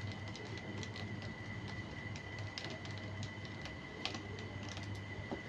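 Small scattered clicks and taps of a screwdriver driving the small screws back into a laptop's plastic bottom cover, with a few sharper clicks. A steady low hum runs underneath.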